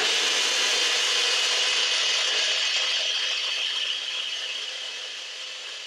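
NutriBullet personal blender running, started by pressing its cup down onto the motor base: a sudden, loud, steady whir as it blends a thick cake batter, getting quieter from about four seconds in as the mix smooths out.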